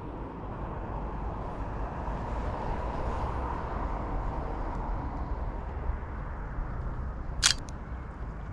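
Outdoor street ambience: a steady low rumble of road traffic that swells around two to four seconds in as a vehicle passes, with a single sharp click near the end.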